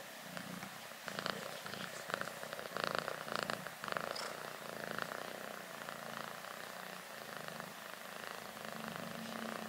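Domestic cat purring softly and steadily, with some light rustling.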